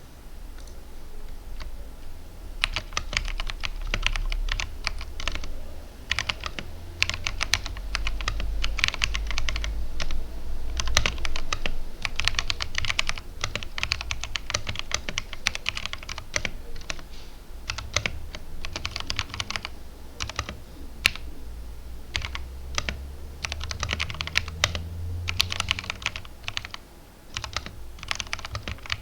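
Typing on a mechanical keyboard with greased brown tactile switches and thick PBT OEM-profile keycaps: fast runs of keystrokes with short pauses now and then.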